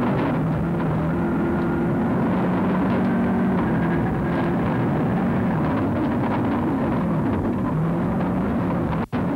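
In-car sound of a Mitsubishi Lancer Evolution rally car at full speed on a gravel stage. The turbocharged four-cylinder engine revs up and down through repeated gear changes over steady road noise. The sound cuts out for an instant near the end.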